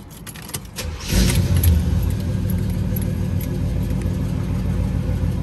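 Chevrolet Monte Carlo SS V8 engine starting: it catches about a second in, flares loudest briefly, then settles into a steady idle.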